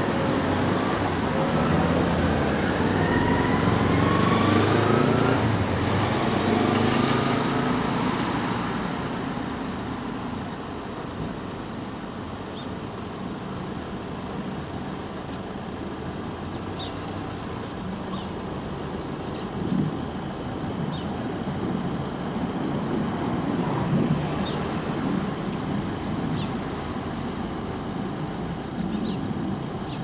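Road traffic: a motor vehicle accelerates past, its engine note rising over the first several seconds, then eases into a steady traffic rumble. Short high chirps from house sparrows come now and then over it.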